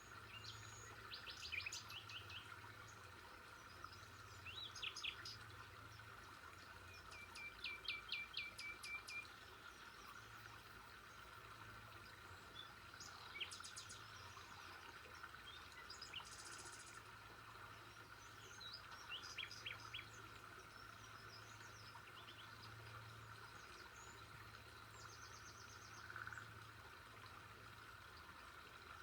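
Birds chirping and trilling in short, separate phrases every few seconds, over a faint steady background hum.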